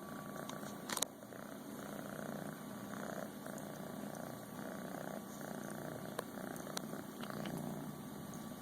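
A cat purring in repeated swells, not coughing. A sharp click about a second in, and fainter clicks later.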